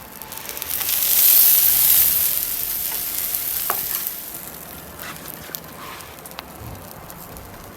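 Omelette sizzling in hot oil in a frying pan. The hiss swells about half a second in, is loudest for a second or so, then dies away over the next few seconds, leaving a few faint clicks.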